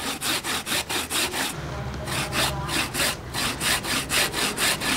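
Coconut flesh being grated by hand on a wooden board grater: a steady train of rasping scrapes, about four strokes a second.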